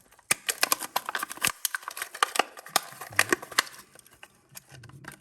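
Plastic blister and cardboard backing of a Hot Wheels package crackling and clicking as they are pushed and handled, a quick run of sharp crinkles that thins out after about four seconds.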